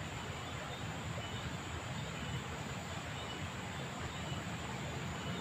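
Steady rush of a small ditch's flowing water, with faint short high peeps now and then.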